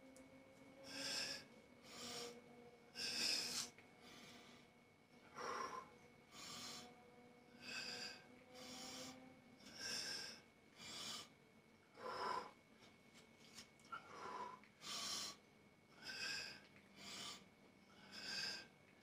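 A man breathing hard in short, even puffs, about one a second, from the exertion of a set of dumbbell hammer curls.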